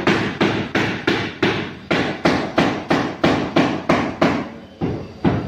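Steady tapping on a large ceramic floor tile with a mallet, about three taps a second with a short pause near the end, bedding the tile into its mortar to bring it level with the floor.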